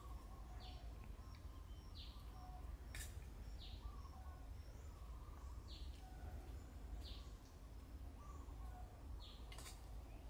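Birds chirping in short repeated calls over a faint steady low rumble, with a couple of sharp clicks.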